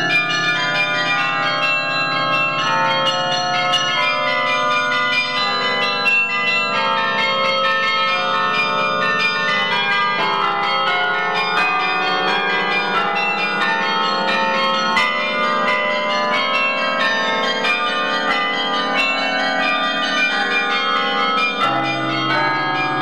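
Carillon bells played from the baton keyboard. A steady, fast stream of struck bell notes rings on and overlaps in a melodic line, with lower bass bells under it.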